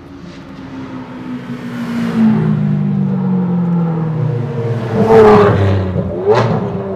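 Ferrari 599 Mansory Stallone's supercharged V12 through its Mansory sport exhaust, driving up and past. The engine note slides down as the car closes in, then rises in two loud surges of revs about five and six seconds in.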